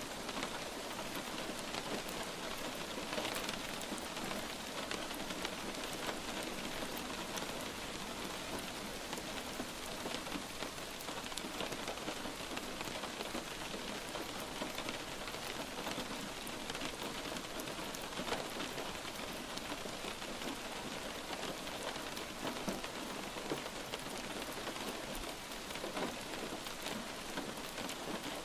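Steady light rain falling on a surface, a continuous patter with scattered individual drop ticks.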